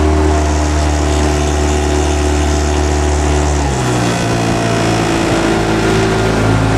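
Outboard motor of a coaching launch running steadily underway; the engine note shifts to a different pitch about four seconds in.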